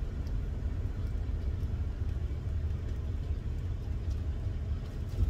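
Steady low rumble of a semi-truck's diesel engine running, heard from inside the cab, with a few faint clicks.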